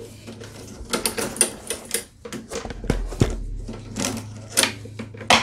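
Irregular clicks, ticks and rattles of a push mower's self-propel cable being pulled through its plastic clips on the handle, with a sharper click near the end. A faint steady hum runs underneath.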